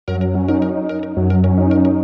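Electronic intro music: sustained synth chords over a bass note, with a steady beat of sharp high ticks, starting abruptly.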